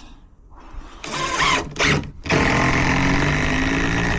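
A power drill driving a screw into a timber gate post. Its motor starts about two seconds in and runs steadily, the pitch rising slightly, after some brief handling noise.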